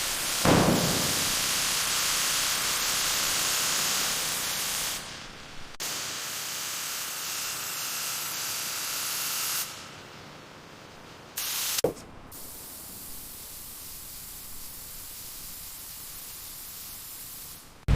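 Spray gun hissing as it sprays paint onto a car body, in several stretches cut one after another, louder in the first half. A short sharp knock about twelve seconds in.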